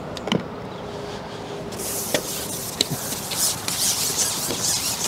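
Rustling, rubbing noise that starts about two seconds in and carries on, with a few light clicks.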